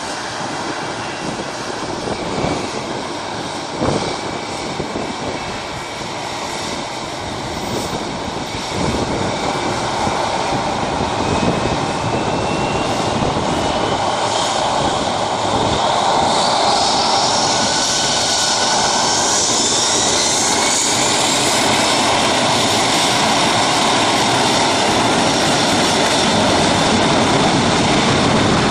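Airbus A340-300's four CFM56 jet engines spooling up from taxi power to takeoff thrust: a steady jet roar that grows louder about halfway through, with a high whine rising in pitch as the engines wind up for the takeoff roll.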